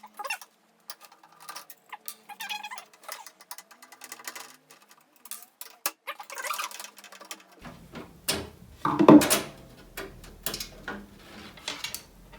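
Scattered clicks and light knocks of a screwdriver undoing the screws of a case fan and the fan being lifted out of a PC case, with a louder knock about nine seconds in.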